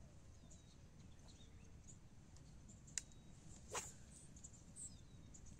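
Quiet lakeshore with faint high bird chirps, broken by a sharp click about three seconds in and a louder, short click-crackle just under a second later, as an angler casts a baitcasting rod.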